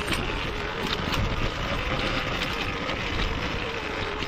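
Off-road motorcycle engine running steadily while riding a rough, rocky trail, with rattles and knocks from the bike over the rocks.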